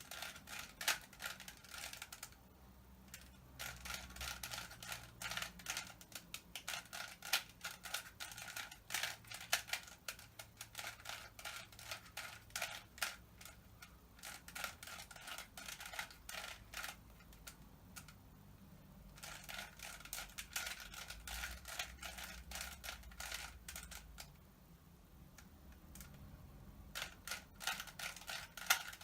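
Rubik's Cube layers being turned by hand: rapid clicking and clacking of the plastic pieces in quick runs, broken by short pauses, during the middle stage of solving the cube.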